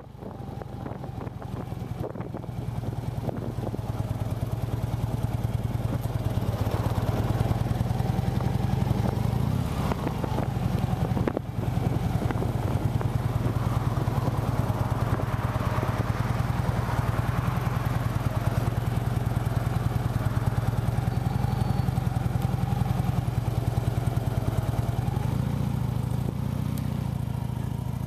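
Harley-Davidson FLHTK Electra Glide Ultra Limited's V-twin engine pulling away from a stop and gathering speed over the first several seconds, then running steadily at cruising speed, with a brief dip about eleven seconds in. Wind rush mixes in at speed.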